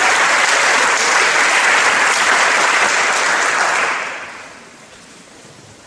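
Audience applause before a choral performance, dying away about four seconds in.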